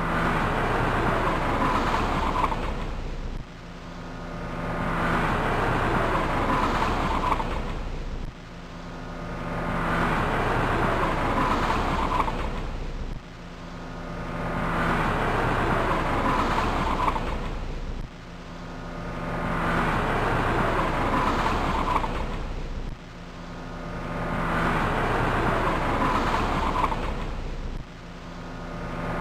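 Car driving on a highway with a flat tire: engine and road noise. A roughly five-second recording repeats about six times, each time swelling up over a couple of seconds and then cutting off abruptly.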